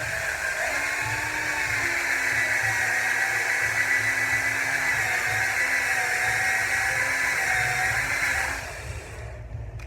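Cordless drill-driver spinning a fan motor's rotor while it is sanded with fine sandpaper: a steady motor whine with a sanding hiss, which stops shortly before the end.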